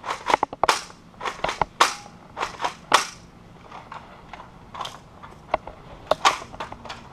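A run of sharp, irregular plastic clicks and knocks from handling a toy shotgun: about two or three a second, loudest in the first few seconds.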